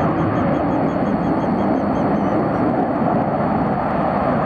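Blue Angels F/A-18 Super Hornet jets making a distant formation pass: a steady jet roar. A rapid run of high chirps sounds over it for the first half.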